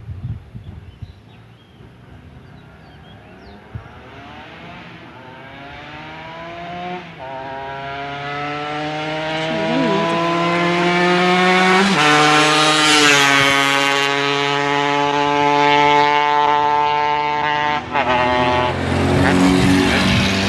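Two-stroke single-cylinder engine of a 1999 Yamaha RD135 motorcycle, freshly carburetor-tuned, revving up: the pitch climbs steadily for several seconds as it gets louder, breaks and holds high about halfway, then drops near the end.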